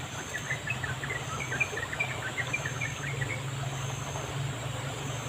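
Insects buzzing in a high, even pulse that repeats about once a second, with a quick run of short bird chirps over the first three seconds and a steady low rumble underneath.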